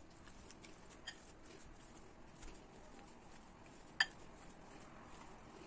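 Metal potato masher working boiled potatoes in a bowl: faint mashing with a few light clinks of metal against the bowl, the sharpest about four seconds in.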